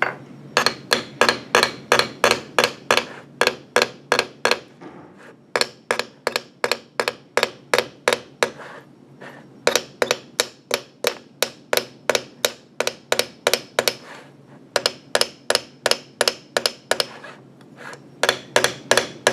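Rivet hammer tapping lightly and steadily on the end of a clamped wire, about four ringing metal-on-metal taps a second in runs of several seconds with short pauses. The blows are spreading the wire end into a rivet head.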